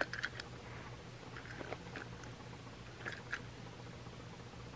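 Faint clicks and light taps of a die-cast metal Ertl toy tram engine being handled, tilted and set down on carpet, in three short clusters about a second apart.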